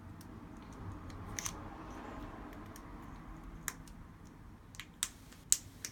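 Scattered sharp clicks and taps of small repair tools on a smartphone's frame and internal parts, about five in all and louder towards the end, over a low steady hum.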